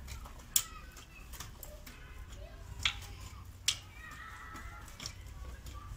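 Garden hoe chopping into stony, clod-filled soil, giving a few sharp knocks as the blade strikes, the loudest about half a second in, near three seconds and just before four seconds.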